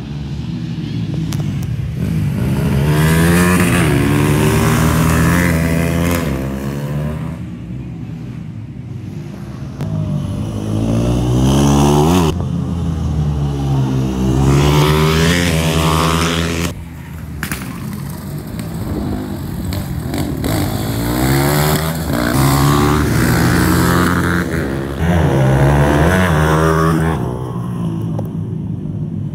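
Supermoto race motorcycles revving and passing, their engine notes repeatedly rising in pitch under acceleration and falling away as riders shift or go by. Loudness swells and fades several times as the bikes come and go.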